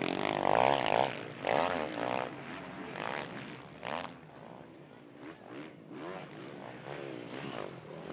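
Motocross bikes racing, their engines revving up and down in quick surges. They are loudest in the first two seconds, die down through the middle and build again near the end.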